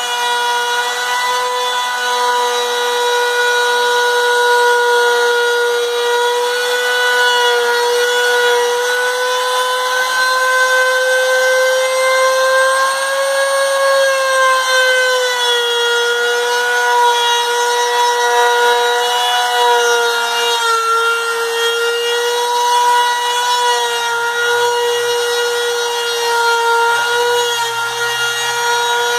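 Makita router on a homemade CNC machine, spinning at high speed and milling a letter out of a wooden board. It gives a steady high-pitched whine with a cutting hiss, and the pitch wavers slightly as the bit takes load along the cut.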